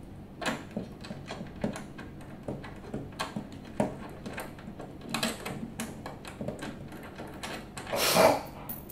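Irregular small clicks, taps and knocks of a metal wall-mount bracket and its screws being fitted by hand to the plastic back of a flat-screen TV, with a louder brief rasp about eight seconds in.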